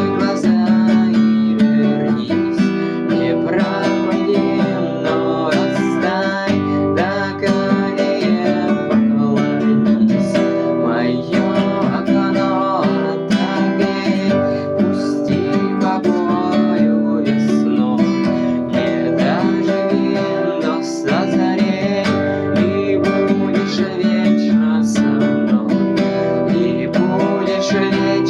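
Acoustic guitar strummed steadily in an instrumental passage, with no singing.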